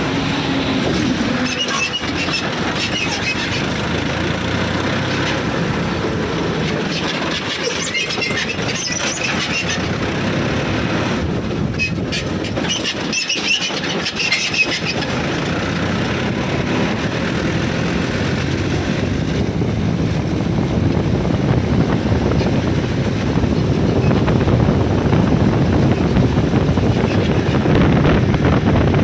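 Heavy diesel vehicle running steadily, with rattling and a few short high squeaks, getting louder over the last few seconds.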